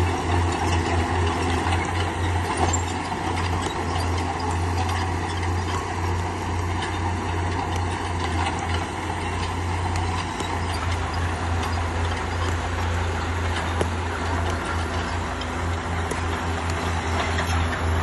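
Diesel engine of a heavy earthmoving machine running steadily, with a few sharp metallic clicks and clanks over it.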